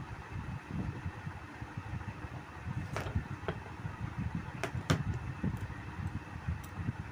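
Electric table fan running, its air stream buffeting the microphone with an uneven low rumble, with a few sharp clicks between about three and five seconds in and once more near the end.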